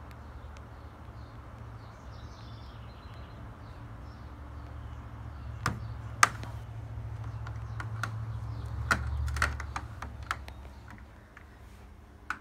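A kitten's claws catching on a door screen's mesh as it climbs and shifts its grip: about ten sharp, irregular clicks over several seconds, one much louder than the rest, over a low steady rumble. Faint bird chirps in the first few seconds.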